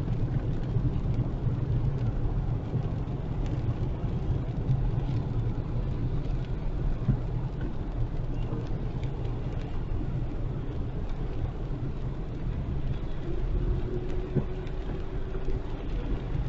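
A car driving in heavy rain: steady low road and engine rumble mixed with the hiss of rain.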